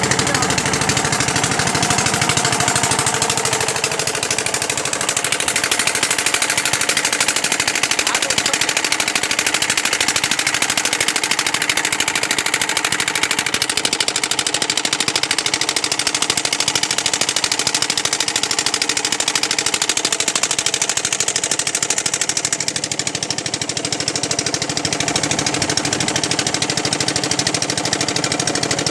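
Boat engine running steadily under way, a rapid, even pulsing.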